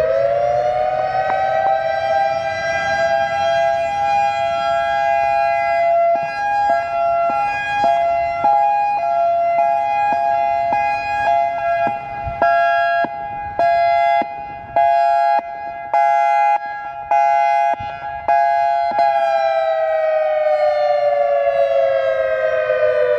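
EOWS 612 electronic outdoor warning siren sounding a steady two-note tone after a short rise in pitch. It cuts out briefly several times in the middle, then winds down in a slow falling glide over the last few seconds.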